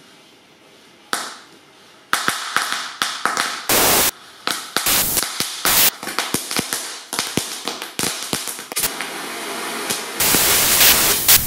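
Pyrotechnics going off inside a prop box: after a quiet start with one click, a dense run of sharp cracks, pops and loud bursts with crackling between them. A loud steady hiss takes over near the end.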